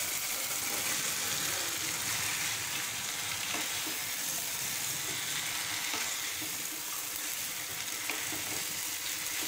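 Hot oil and spice paste sizzling steadily in a frying pan as chopped taro stolons (kochur loti) are added and stirred in with a wooden spatula.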